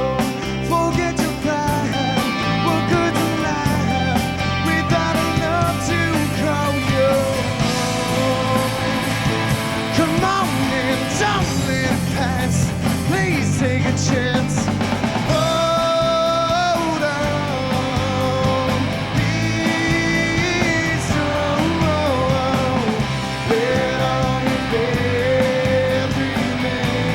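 A rock band playing live: electric guitars, bass and drums, with a lead line carrying the melody and no words heard.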